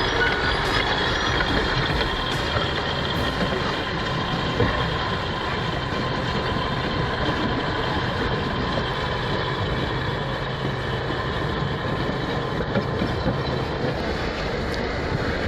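Heavy machine's diesel engine running steadily, a constant low drone with steady tones above it.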